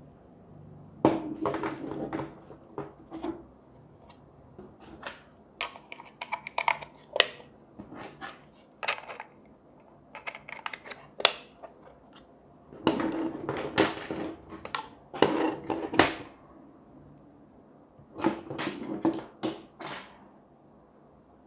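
Chrome metal rings and arms of an orbital kinetic desk sculpture clinking and knocking against each other and the tabletop as they are handled and set down. The clatter comes in several separate clusters with quiet pauses between them.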